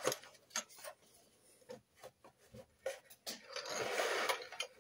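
Plastic miniature kit parts and sprue being handled: a few light clicks and taps, then a rustle of just under a second near the end.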